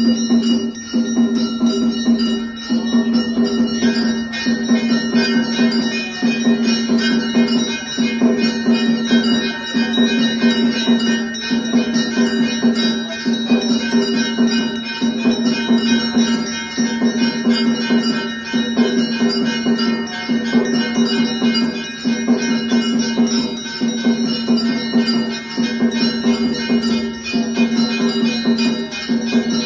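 Temple ritual music with ringing bells and percussion over a held drone note, beating out a pattern that repeats about every two seconds, played for a deeparadhana (lamp-waving offering).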